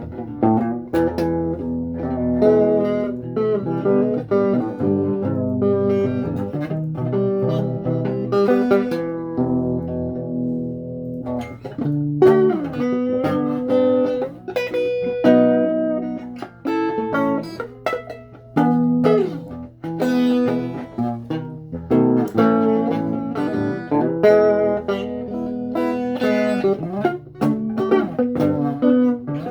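Electric guitar and bass guitar playing blues-influenced rock: a run of picked lead notes, some of them bent, over a bass line.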